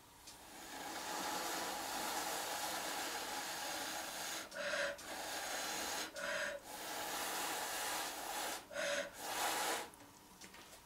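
A person blowing by mouth onto wet acrylic paint on top of an upturned glass: long, steady, breathy blows, broken three times by quick, audible in-breaths.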